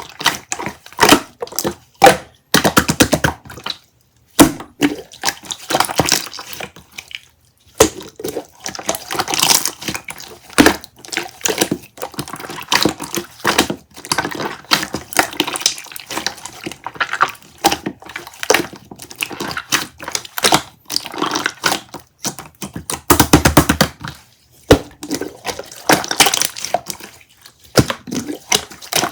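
Irregular close-up clicks, knocks and crunching, with short stretches of liquid running and dripping, from hands-on preparation of lemonade.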